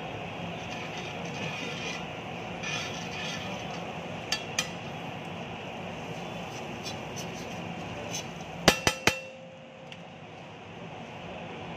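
Metal spatula spreading butter across a flat steel griddle (tawa), with the steady hiss of the butter cooking. Two light clicks come about four seconds in, then three sharp ringing strikes of the spatula on the steel in quick succession, about two-thirds of the way through.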